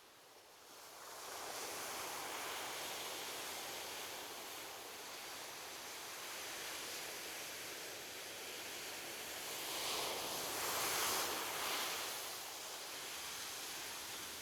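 Ocean surf washing on a beach: a steady hiss of water that swells as a wave comes in about a second in, and again, louder, around ten seconds in before easing back.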